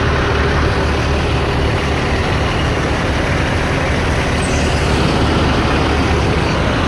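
Semi-truck diesel engine with its jake brake (engine compression brake) engaged, giving a loud, steady, rapid chatter that holds at one pitch throughout.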